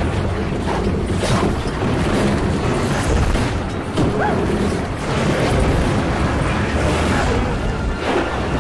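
Dramatic film soundtrack: music mixed over a heavy, continuous rumble, with a sudden hit about four seconds in.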